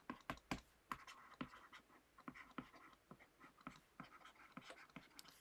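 Faint irregular taps and scratches of a stylus writing on a tablet screen.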